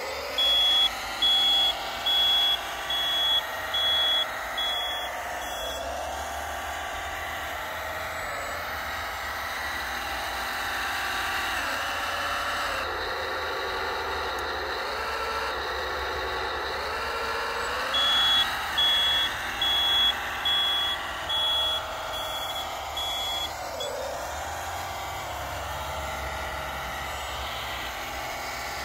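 A 1/14-scale RC hydraulic wheel loader working: the whine of its electric hydraulic pump and drive motors rises and falls in pitch as it moves and works the bucket. Twice its reversing beeper sounds a run of high beeps, about three every two seconds, as it backs up.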